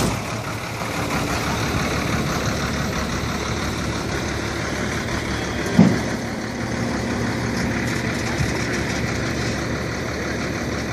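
An engine idling steadily, with one short, loud, pitched sound about six seconds in.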